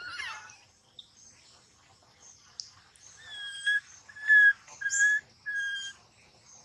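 A short wavering squeal, then four clear, high, level-pitched whistled calls of about half a second each, evenly spaced.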